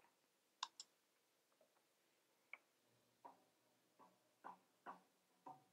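Near silence broken by about eight faint, short clicks spread unevenly, from buttons being pressed and faders handled on a digital mixing console.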